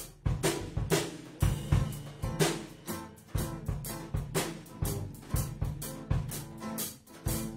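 Live drum kit and electric guitar playing together: snare and bass drum strike a steady beat of about two hits a second under strummed guitar chords, in a loose reggae style.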